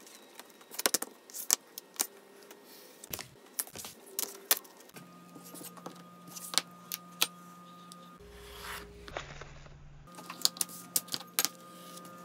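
Irregular sharp clicks and taps of metal rulers and a steel straight bar being set down and knocked against leather pieces on a cutting mat, as the pieces are squared up to one height.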